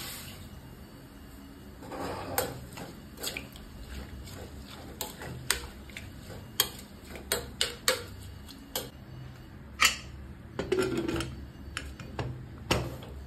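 A metal ladle clinking and scraping against the inside of a pressure cooker as greens are stirred in water, with irregular sharp knocks. A splash of water poured in near the start, and the cooker's lid clanking as it is set on and closed near the end.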